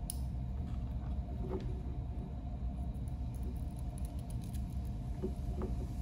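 Small clicks and scratching of a screwdriver working the terminal screws on a plastic push-button contact block, over steady low background noise.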